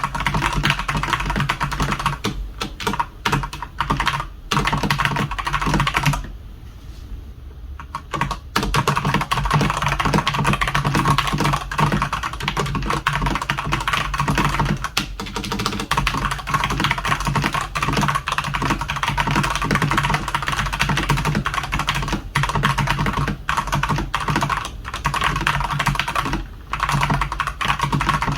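Fast typing on a Redragon Sindri K671 mechanical keyboard with Outemu red linear switches: a dense run of keystrokes, broken by a pause of about two seconds roughly six seconds in.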